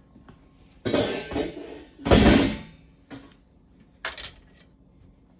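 Pots and pans clattering as cookware is moved aside. There are a few separate bursts and clicks, the loudest about two seconds in.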